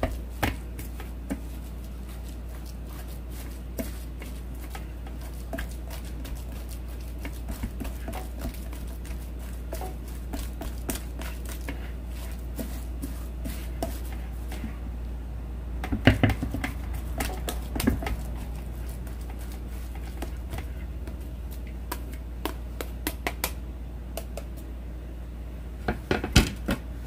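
Spatula pressing and scraping a wet grated-potato mixture against a stainless-steel mesh strainer to squeeze out its water, with scattered soft clicks and scrapes. A few louder knocks come about 16 and 18 seconds in and again near the end.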